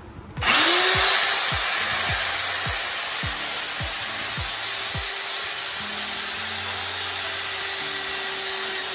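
INGCO RH10508 1050-watt rotary hammer, set to drill-only with a twist bit, starting up about half a second in and running steadily with a high whine as it bores a hole through a metal bar.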